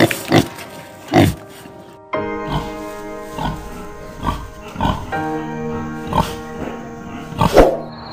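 Pigs grunting in short, separate grunts, roughly one a second, over background music.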